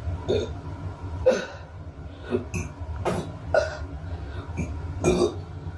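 A person making a string of short burps and coughing, hiccup-like gulps, about one a second, over a low steady rumble.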